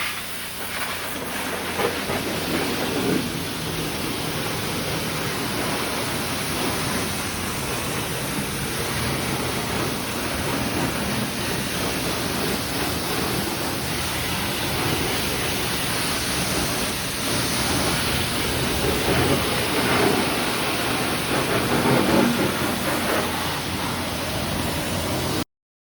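Car wash pressure-washer wand spraying water onto a muddy bike, a steady hiss with spattering spray. It cuts off abruptly just before the end.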